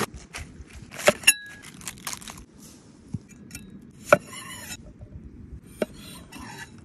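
A cleaver chopping on a wooden board: sharp knocks, one with a brief metallic ring, then a crunch as the blade cuts through a cherry tomato, and another knock and crunch as it cuts a pickle near the end.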